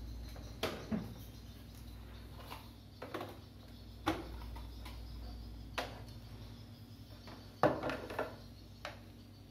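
Irregular clicks and knocks of cables, plugs and equipment being handled while hooking up a computer monitor, about seven in all, the loudest a cluster near the end.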